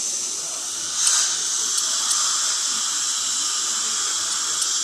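Dental ultrasonic scaler running against the teeth with its water spray during a cleaning: a steady high hiss that swells slightly about a second in.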